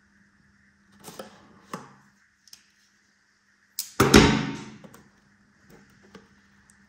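Scissors cutting into the wrapping of a cardboard trading-card box, with a few short scrapes. Then, about four seconds in, the wrapping is torn open in one loud rip that fades over about a second.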